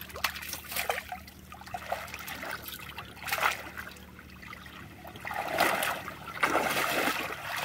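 Shallow pond water splashing and trickling as a landuá hand dip net is worked through it. There is a short splash about three seconds in, then a longer, louder stretch of splashing from about five and a half seconds on.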